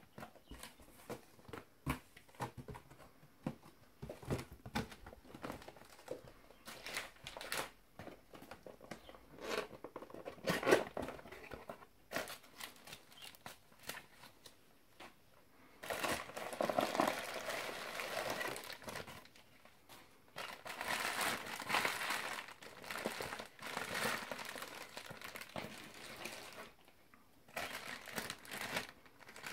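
Unpacking by hand: scattered taps and short rustles of a cardboard box being handled, then long stretches of plastic bubble wrap and a plastic bag crinkling as a riflescope is unwrapped.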